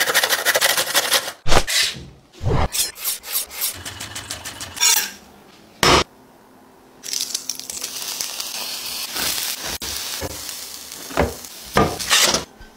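Carrot rasped against a stainless-steel box grater in quick strokes, then a single sharp knock about six seconds in. From about seven seconds, grated carrot sizzles steadily in a nonstick frying pan while a spatula stirs it, with a few louder scrapes near the end.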